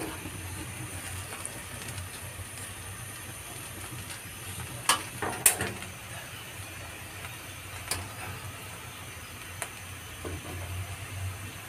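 A metal spatula clinks and scrapes against a china plate and a steel pan a few times as rice is moved between them, the two loudest clinks about five seconds in. A steady low hiss lies underneath.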